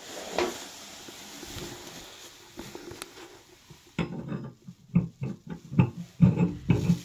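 Wrench working the nut on a toilet's chrome angle stop valve: after a quiet stretch of handling noise, a rapid, irregular run of short rubbing, clicking strokes begins about four seconds in.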